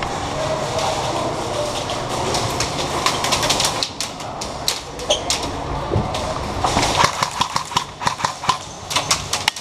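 Airsoft gunfire: sharp clicking shots that start about four seconds in, scattered at first, then coming in quick bursts over the last few seconds. A steady rumbling noise fills the first few seconds before the shots.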